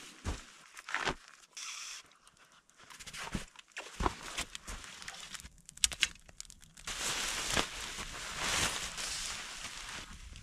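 Camping sleeping gear being handled and arranged: scattered crinkles, crunches and knocks, then about three seconds of steady rustling starting about seven seconds in.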